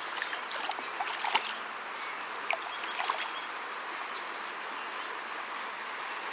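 Steady rush of flowing stream water, with a few faint clicks and some brief high chirps.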